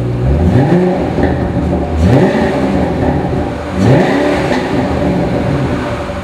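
2007 Ford Mustang Shelby GT500's supercharged 5.4-litre V8 with a Flowmaster exhaust, idling and revved three times with quick throttle blips that each rise and fall back to idle: near the start, about two seconds in and about four seconds in.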